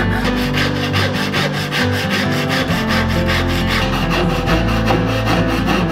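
A backsaw rasping back and forth through a clear-grain poplar board, hand-cutting dovetails, over background music.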